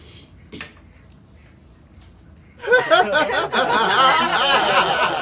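A burst of loud laughter starting about two and a half seconds in and lasting nearly three seconds.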